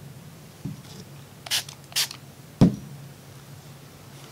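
Two short spritzes from a spray bottle of gun-cleaning solvent, about a second and a half and two seconds in, followed by a sharp knock as a pistol part is set down on the bench mat.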